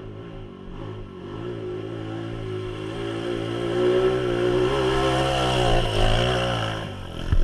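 Dirt bike engine approaching along a trail and growing louder as it nears, its revs rising and falling with the throttle as it passes close by. A short sharp knock comes at the very end.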